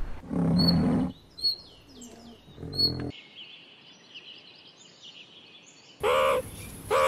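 Birds chirping in short, high calls, with a low rumbling sound during the first second and again near the three-second mark. About six seconds in, a loud, harsh call with an arching pitch begins, and a second one starts near the end.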